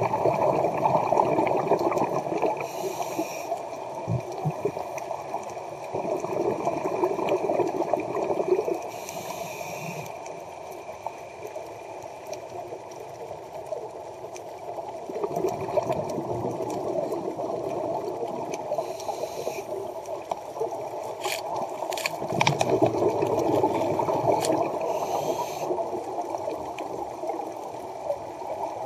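Scuba regulator breathing heard underwater: gurgling bursts of exhaled bubbles come every several seconds, with short high hisses between them.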